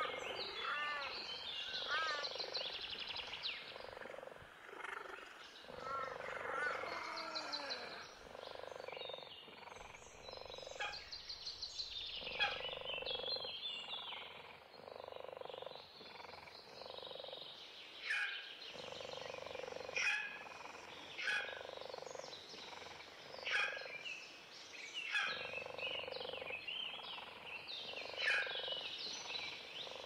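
Wild birds chirping and trilling, with many short high notes, fast trills and sharp falling chirps. A lower croaking call repeats every second or two underneath.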